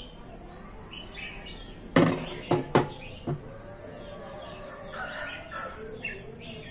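Birds chirping in the background, with a quick run of three or four sharp knocks about two seconds in.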